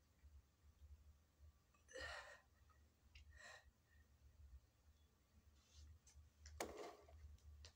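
Near silence with a few faint breaths as a woman drinks from a paper cup, and one short sharp knock near the end.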